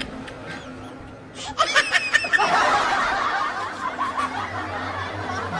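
A group of people laughing together: a few quiet snickers, then many voices breaking into laughter about a second and a half in and carrying on.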